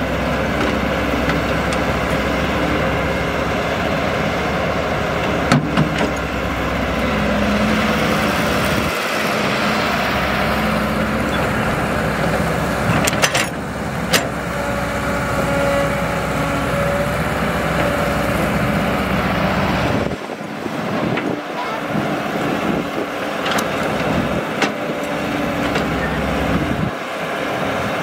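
Caterpillar crawler excavator's diesel engine running under load as it digs and swings, with a few knocks as soil drops into a steel dump-truck bed.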